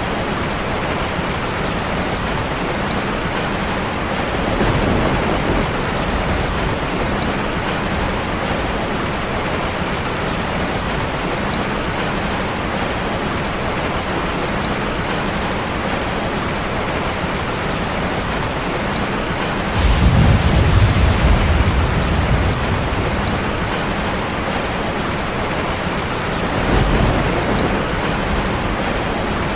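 Steady heavy rain hissing, with low rumbles of thunder: a faint one about five seconds in, a louder one that breaks in suddenly about twenty seconds in and lasts a couple of seconds, and another shorter one near the end.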